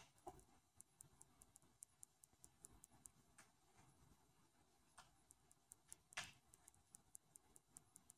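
Near silence with faint, quick ticking, about four ticks a second, and a few louder soft clicks, the loudest a little after six seconds in.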